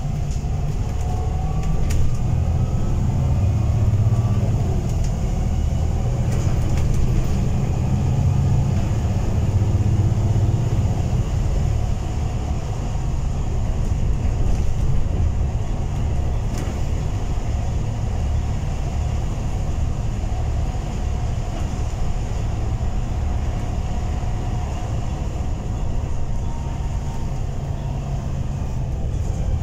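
Interior noise of a double-decker bus under way, heard from the upper deck: a steady low engine and road rumble, somewhat heavier for the first dozen seconds, then evening out.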